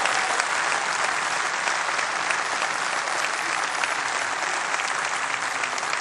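A large audience applauding steadily, many hands clapping at once.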